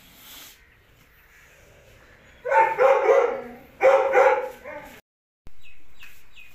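Two loud animal cries, each under a second long, about a second and a half apart.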